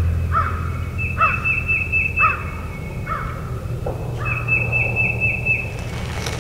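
Crow cawing repeatedly, about one caw a second, while a songbird sings two runs of fast, high repeated notes behind it. A steady low rumble runs underneath, and there is a brief burst of noise near the end.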